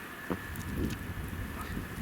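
Blizzard wind rumbling and gusting on the microphone, with a few faint clicks and ticks, one sharper click shortly after the start.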